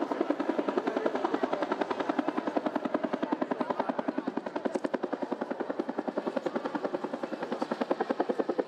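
Bell TAH-1F Cobra helicopter in display flight, its two-bladed main rotor beating in a rapid, even rhythm of about ten beats a second.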